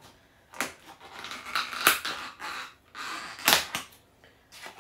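Thin plastic takeaway curry-sauce tub being handled while the sauce is poured out, giving a run of sharp clicks and crackles of the plastic, loudest twice, about two seconds and three and a half seconds in.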